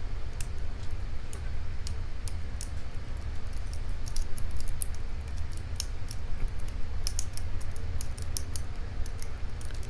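Lock pick and tension wrench working the pins of a challenge padlock: many small, irregular metallic clicks and scrapes, over a low steady hum.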